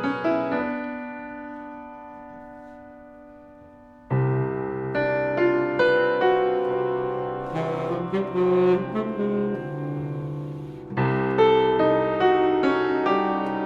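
Live small-ensemble jazz music. A held chord, likely on the piano, fades away over about four seconds, then the band comes back in loudly with alto saxophone and brass over piano, with another strong entry near the end.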